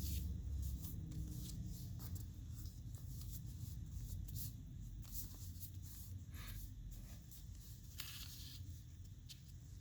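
A sheet of origami paper being handled and folded, with irregular rustles and crisp creasing swishes, over a low steady hum.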